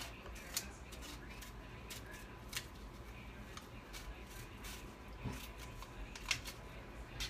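Scissors snipping paper in short, unevenly spaced snips, about one a second, with the loudest about six seconds in.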